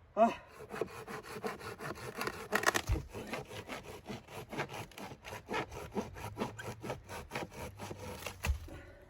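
Hand saw cutting through wood with quick, even back-and-forth strokes that start suddenly and run until near the end.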